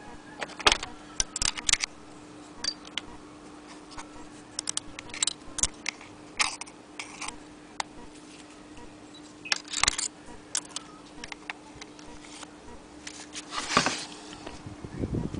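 Irregular metallic clicks and clinks from the parts of an antique Agenoria sewing machine being handled, with a small flat metal plate fitted around the needle plate. A steady hum runs underneath.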